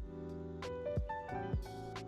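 Background music: a gentle instrumental track with keys and a steady beat of drum hits.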